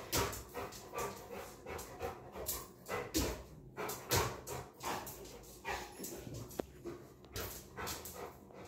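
A dog panting hard in quick, noisy breaths as it jumps up, eager for a treat held above it.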